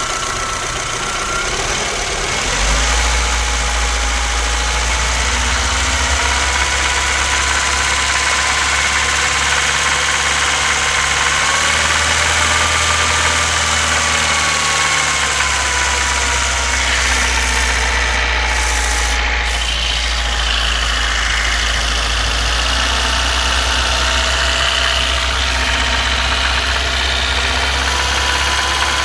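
VAZ 2115's four-cylinder petrol engine running steadily, freshly rebuilt, with a whining tone drifting slightly up and down in pitch. The engine has developed a diesel-like knock at 2000–2500 rpm.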